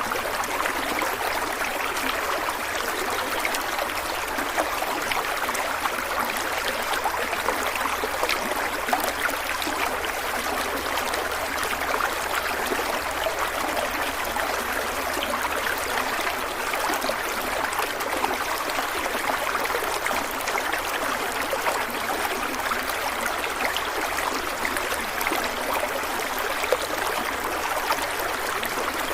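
Stream water flowing and trickling steadily, a continuous babbling rush.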